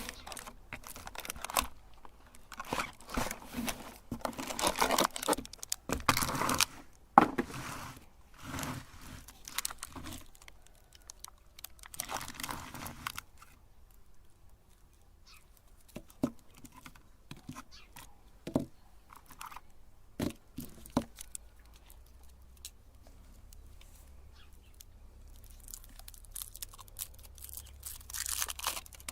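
Wrapping crinkling and tearing in irregular bursts, with a few sharp clicks and taps in the quieter middle stretch; typical of foil wrappers being pulled off chocolate umbrellas.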